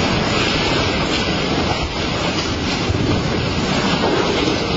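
Steady rumbling noise of a cut-away block of a ship's steel superstructure crashing down onto the beach and settling, with no single sharp impact standing out.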